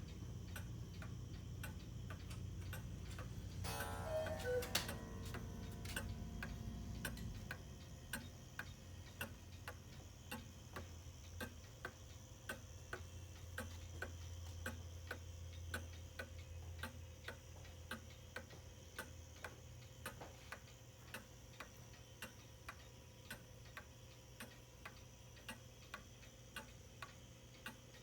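Antique Black Forest cuckoo clock ticking steadily, about one and a half ticks a second. A brief ringing sound comes about four seconds in.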